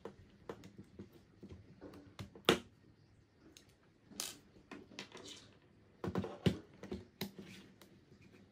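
Scattered clicks and knocks of a small screwdriver and RC car shock absorbers and screws being handled and set down on a wooden table. The loudest knock comes about two and a half seconds in, with a quick cluster of knocks around six seconds.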